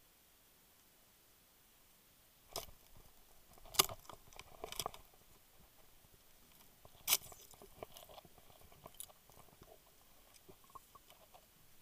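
Underwater speargun shot into a monkfish. After a quiet start come sharp clicks and knocks of the gun firing and the spear shaft striking, the loudest two about three seconds apart. Lighter scattered clicking follows.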